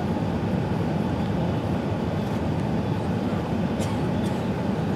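Steady cabin noise inside an Airbus A380 descending low on approach: a dense, even rumble of engine and airflow noise, heaviest in the low range. A couple of faint clicks sound near the end.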